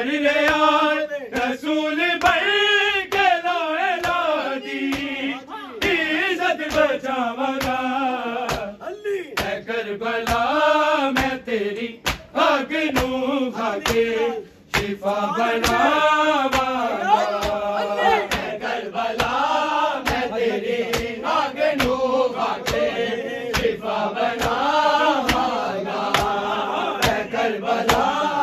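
Men chanting a Punjabi noha lament together, a mourning chant for Ali Akbar. Sharp strikes keep a steady beat throughout, typical of matam chest-beating by the mourners.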